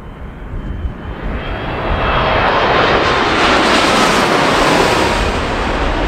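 Boeing 787-9 Dreamliner's GEnx turbofan engines passing low overhead on landing approach. The jet rumble swells over the first two seconds and is loudest mid-way, with a faint whine that drops in pitch as the plane goes by.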